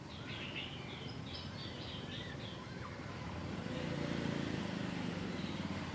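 A quick run of about eight short high chirps in the first two and a half seconds, then a low rumble that swells in the second half.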